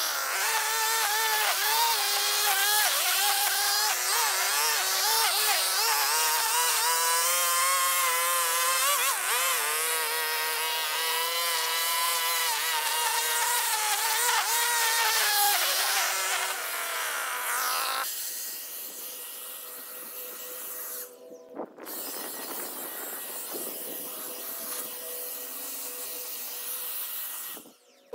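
String trimmer running with a high buzzing whine whose pitch wavers up and down as the line cuts grass. The whine fades out after about 17 seconds and gives way to quieter, rustling outdoor noise.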